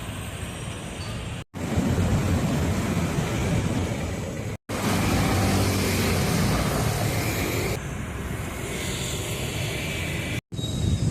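Street traffic noise: a steady wash of passing vehicles. It is broken into several short stretches by abrupt cuts with brief dropouts, and the sound changes between stretches.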